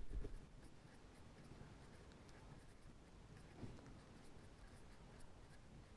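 Faint scratching of a pen writing a word on paper, over quiet room tone.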